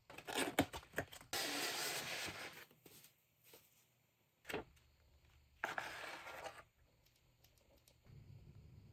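Keyboard packaging being handled: two long rubbing, sliding stretches, as of a box or sleeve sliding against cardboard, with a few light taps and one sharp knock halfway through.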